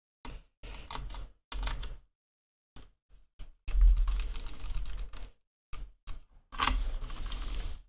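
Hand screwdriver turning small screws into a graphics card's metal backplate and water block, with irregular clicks and scrapes of the screwdriver and metal parts being handled, coming in short bursts with silent gaps between.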